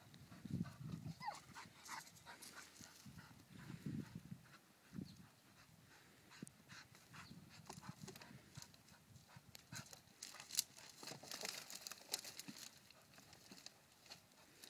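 Faint sound of a dog scrambling over a pile of dead branches, with scattered sharp cracks and snaps of twigs and brush. The dog's panting is heard at times.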